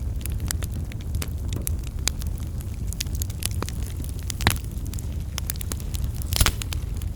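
Wood fire burning in a fireplace: a steady low rumble of flames with scattered sharp crackles, and two louder pops about four and a half and six and a half seconds in.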